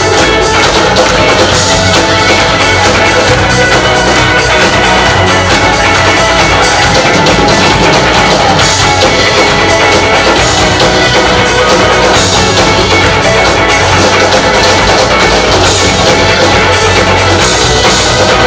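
Live blues-rock band playing an instrumental break between sung verses: electric guitar, electric bass and drum kit.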